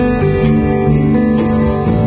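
Live band playing slow worship music: acoustic guitar and electric bass guitar with long held chords, over a light, even beat.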